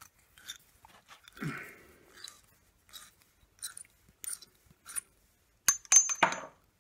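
Bahco 15 mm pipe slice being rotated around copper pipe, its cutting wheel scoring the pipe in a series of short crunching scrapes. Near the end comes a louder clatter with a brief metallic ring as the pipe is cut through.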